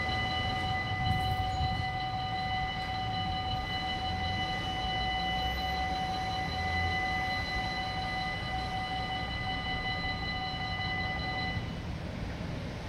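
Belgian level-crossing warning bell ringing steadily with a metallic, many-toned ring while the barriers lower, then cutting off near the end once they are down.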